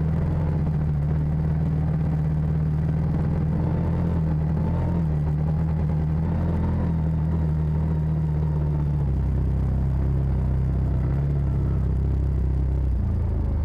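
Side-by-side UTV engine running steadily as it is driven along a trail, with a low rumble; the engine note shifts about nine seconds in.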